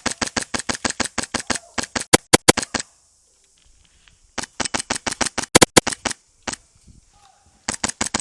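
HPA airsoft rifle (G&P MK18 with a Polarstar F2 engine) firing rapid strings of shots, about eight a second, in three bursts separated by pauses of about a second and a half.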